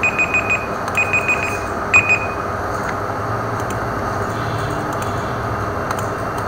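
An electronic beeper sounds a high-pitched tone in quick groups of pulses, about one group a second, and stops about two seconds in. After that a steady low hum and room noise remain.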